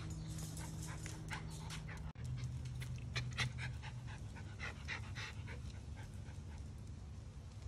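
Schnauzers panting, with a run of short rapid breaths from about three to five and a half seconds in, over a steady low hum.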